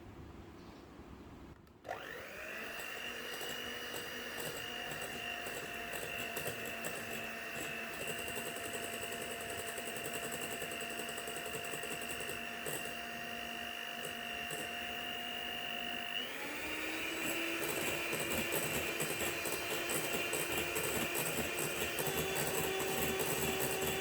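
Electric mixer whipping topping cream: the motor starts about two seconds in and runs steadily, then steps up to a higher speed about sixteen seconds in.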